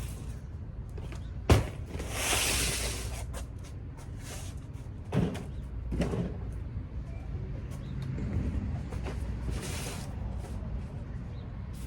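Handling knocks and clatter: a sharp knock about one and a half seconds in, two duller knocks around five and six seconds, and short rustling hiss between them over a low steady rumble.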